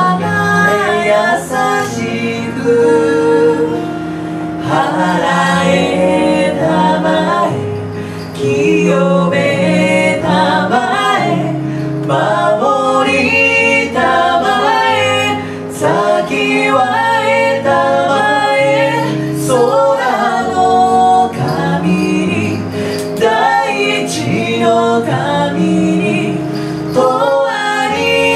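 Live song: a woman singing phrases into a microphone over guitar accompaniment and sustained low notes.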